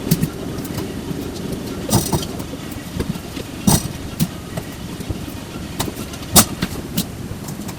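Kitchen knife slicing potatoes in half on a cutting board: a string of irregular sharp knocks as the blade goes through and hits the board, over a steady low hum.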